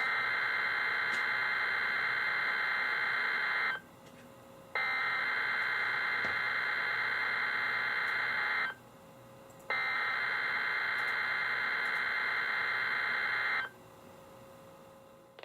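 Emergency Alert System SAME header sent over NOAA Weather Radio, opening a Required Weekly Test: three bursts of warbling digital data tones, each about four seconds long, with about a second's pause between them.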